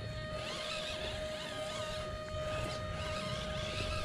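Small electric motor and gearbox of a 1/18-scale EazyRC 4x4 crawler truck whining steadily as it crawls up a steep dirt slope, over a low rumble.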